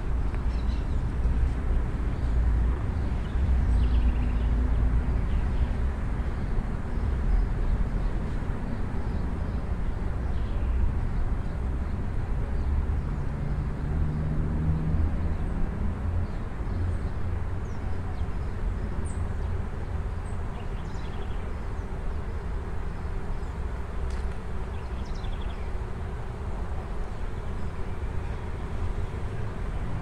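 Bees humming around the blossoms of a white ipê tree, over a steady low outdoor rumble.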